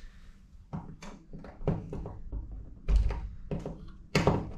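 Knocks and thumps against a screen door as the door-closer hardware is handled, with a heavier thump about three seconds in and a sharp knock near the end.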